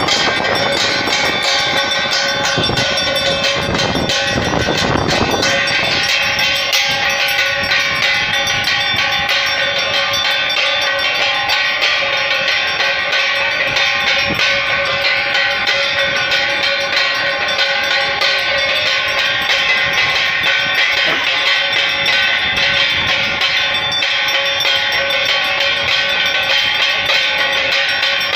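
Aarti bells rung rapidly and without a break, a dense clanging jangle over steady ringing tones.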